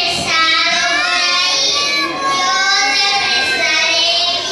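A child's voice singing a slow melody, holding long notes that slide between pitches.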